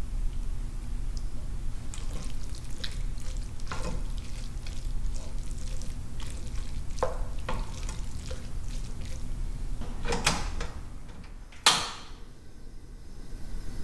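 Close-miked cooking sounds: utensils knocking and clinking against cookware over a steady low hum, with one louder clatter near the end, after which it goes quieter.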